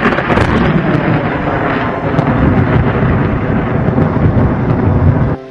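Thunderstorm: loud, continuous rumbling thunder that cuts off suddenly near the end.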